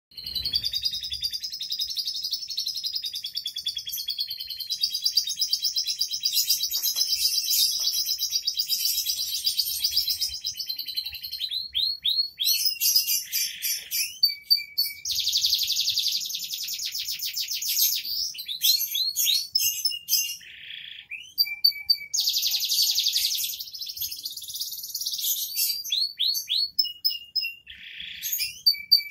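Domestic canary singing without let-up in a high, dense song. Long fast rolling trills for the first ten seconds or so, then a string of varied phrases of rapid trills and quick chirps, broken by short pauses.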